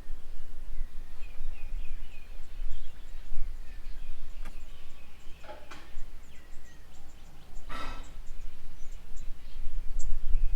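Small birds chirping and calling at intervals over a steady low rumble, with a brief louder burst of noise about eight seconds in.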